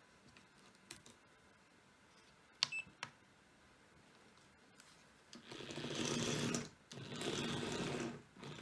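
Small hobby servo motors of a pan-and-tilt camera mount whirring in two bursts of a little over a second each, after a few light clicks.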